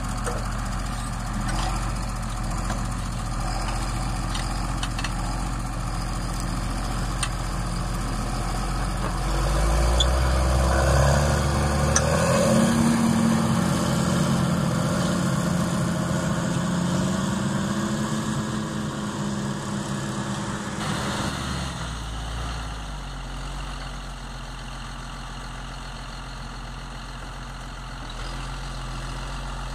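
John Deere 7720 tractor's six-cylinder diesel engine running steadily under load while pulling a mounted plough through the soil. It grows louder from about a third of the way in, then drops suddenly to a lower level about two-thirds of the way through.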